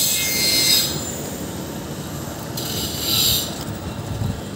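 Street background noise with a high-pitched hiss that comes and goes twice, over a steady low rumble.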